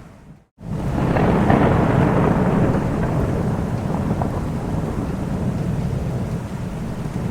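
Thunderstorm: steady rain with a long rolling rumble of thunder. The sound drops out to a short silence about half a second in, then comes back with the thunder swelling and slowly easing off under the rain.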